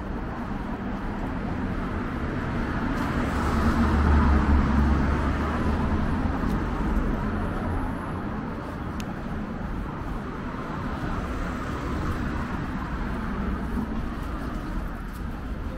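City street traffic noise, with a motor vehicle passing close: a deep rumble that swells about three to six seconds in, then eases back to a steady hum.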